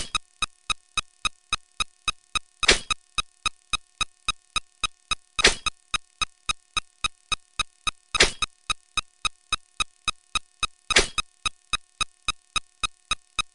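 Sped-up counting sound effects: a fast, even run of short electronic ticks, about four a second, with a louder, longer hit about every three seconds.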